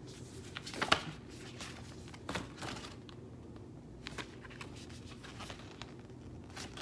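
Paper instruction booklet being handled and its pages turned: a few short rustles, the loudest about a second in.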